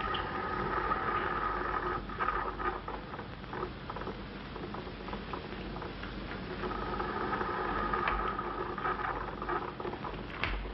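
Surface noise of an old optical film soundtrack: steady hiss with scattered crackles and pops. A faint held tone comes in during the first few seconds and again past the middle.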